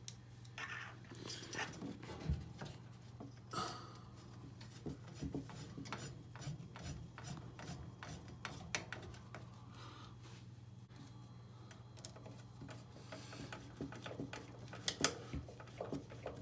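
Hand screwdriver driving screws to fasten a washing machine's replacement drain pump into its housing: irregular small clicks and scraping of metal on plastic, over a steady low hum.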